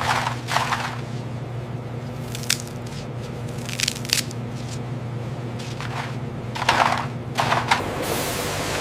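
Around eight sharp crisp crunches, spread irregularly, over a steady low machine hum that stops near the end.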